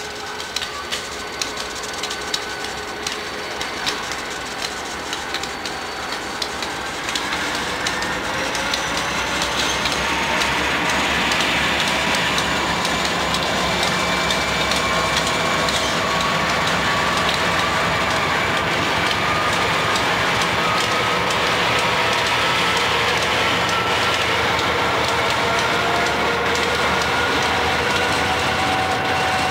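Union Pacific diesel locomotives moving slowly past at close range: wheels clicking over rail joints at first, then the diesel engines grow louder, with a turbocharger whine that rises slowly in pitch.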